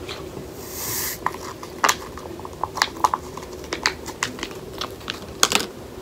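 Electrolyte powder being shaken from a small packet into a glass jar of water: a brief rustling hiss about a second in, then a run of irregular light taps and ticks.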